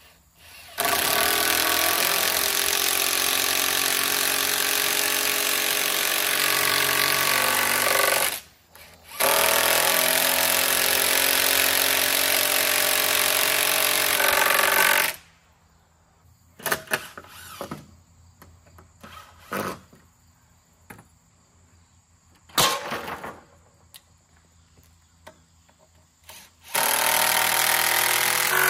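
Cordless impact driver running in two long runs of about seven and six seconds, driving a fastener through a timber brace into the post-and-beam frame. Then come a few scattered knocks and clicks, and a third short run near the end.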